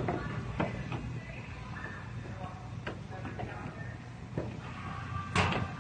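A bracket being test-fitted by hand at a car's front corner: scattered light clicks and taps, with one louder knock about five seconds in, over a steady low hum.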